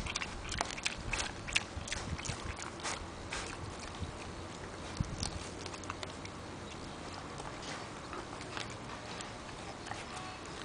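Mini pig chewing and tearing grass with open-mouthed smacking: a run of sharp clicks, quick and dense for the first three seconds, then sparser.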